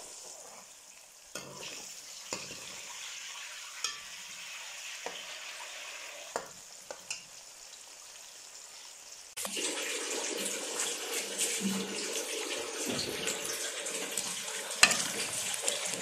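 Sliced onions sizzling as they fry in oil in a steel pot, with a steel ladle clinking against the pot now and then as it stirs. About nine seconds in, the sizzling turns suddenly louder and fuller, with a sharp knock a few seconds later.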